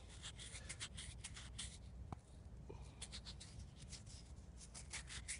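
A thumb rubbing soil off a small dug-up metal find held close to the microphone: a faint run of quick, irregular scratching strokes, grit scraping on metal and skin.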